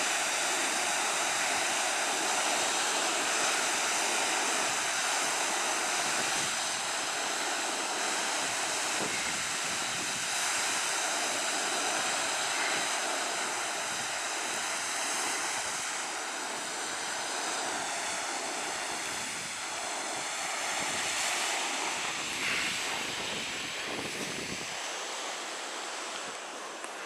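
Small Baltic Sea waves breaking and washing onto the shore, a steady rushing surf that eases a little near the end.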